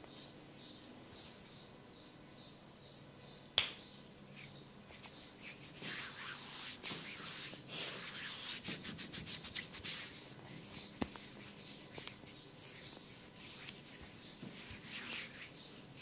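Head massage: hands rubbing and scratching through hair in quick strokes, busiest from about five to eleven seconds in. There is a single sharp click about three and a half seconds in and a smaller one near eleven seconds.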